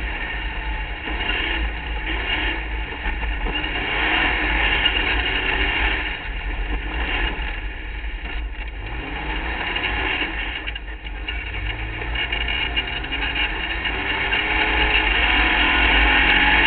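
Race car engine running hard on a dirt course, heard from an onboard camera with heavy low wind and vibration rumble. It eases off twice, then its pitch climbs again each time, growing louder toward the end as it accelerates.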